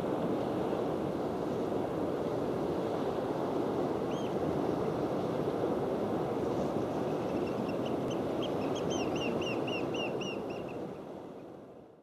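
Steady rush of sea surf and wind at a cliff seabird colony. A bird gives one short high call about four seconds in, then a fast run of short, high, falling calls. The sound fades out at the very end.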